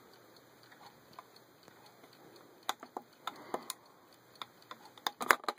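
Plastic push-buttons on a small digital travel alarm clock clicking under a fingertip: a handful of light, scattered clicks, coming closer together near the end.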